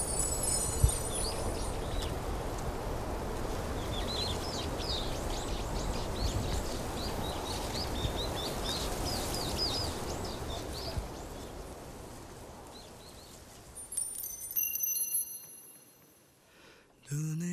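Outdoor ambience: a steady low rush of wind with small birds twittering through the middle, and a few high ringing tones near the end before it fades away.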